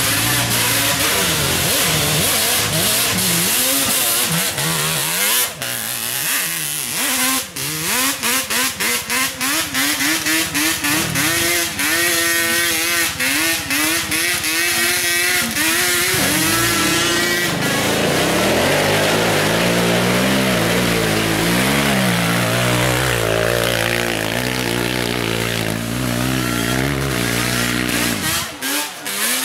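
Two-stroke off-road motorcycle engines revving hard, the pitch climbing and falling constantly. Through the middle the throttle is blipped on and off in quick, choppy pulses before the engines settle into steadier high revs, dropping away sharply near the end.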